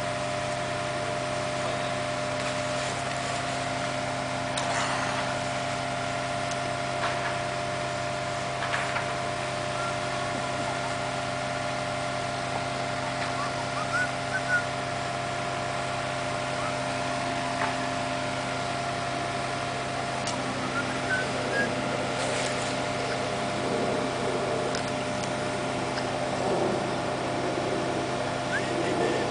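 Diesel engine of a long-reach demolition excavator running at a steady hum, with occasional short knocks and cracks from the demolition work. The rumbling grows busier in the last third.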